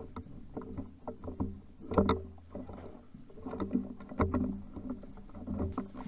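Footsteps scuffing and crunching on a gritty concrete floor, with gear knocking, at an uneven walking pace. Two knocks, about two and about four seconds in, stand out, over a faint steady hum.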